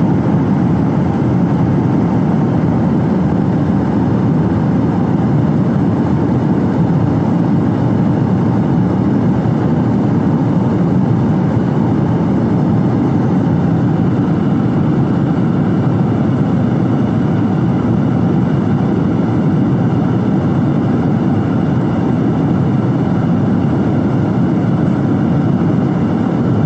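Steady cabin noise of a Lion Air airliner, a loud even rumble with faint steady high tones above it; the uploader finds the sound strange and does not know its cause.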